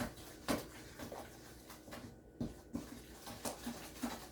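Cookie batter being stirred by hand in a mixing bowl: soft, irregular knocks and scrapes of the utensil against the bowl.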